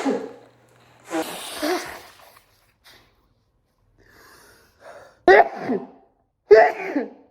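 A man sneezing over and over, a fit brought on by seasonal allergies. There are four sneezes, and the last two are sharp and about a second apart, with a short breath in before them.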